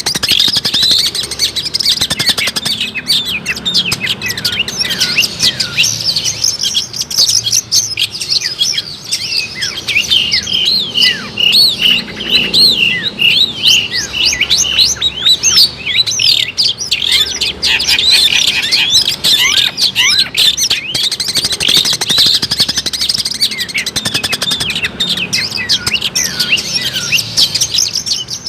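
Long-tailed shrike (cendet) singing a fast, unbroken run of short, high chirps and trills.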